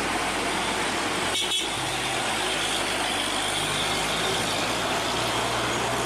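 Hino cargo truck's diesel engine running, with steady road and wind noise, as it rounds a bend. There is a brief break in the sound about a second and a half in.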